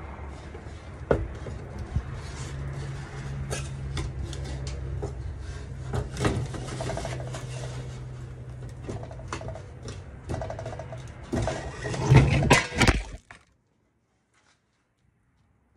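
Sheet-metal pizza peel clanking and scraping on a metal-covered table, scattered sharp clinks and knocks over a steady low hum. About twelve seconds in comes a flurry of loud knocks and rubbing, then the sound cuts off to near silence.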